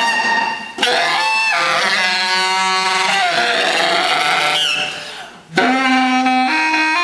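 Baritone saxophone played in free improvisation: long held low notes thick with overtones, the upper tones wavering. The sound breaks off briefly about a second in and fades out near five seconds in, then a new low note starts abruptly and steps up in pitch.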